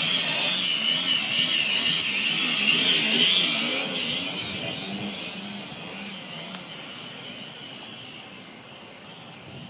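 A power tool running with a loud, hissing noise and a wavering lower hum, fading away steadily over the second half.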